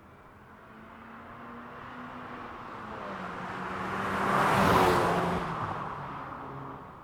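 VW Golf GTI driving past: its engine note and tyre noise build as it approaches, are loudest about two-thirds of the way in, then drop in pitch and fade as it goes away.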